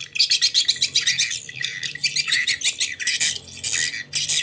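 Two swiftlet call recordings playing at once through a pair of horn tweeters: a dense, rapid, high twittering and chirping of swiftlet lure calls. These are the call sounds (suara panggil) used to draw young swiftlets into a nest house.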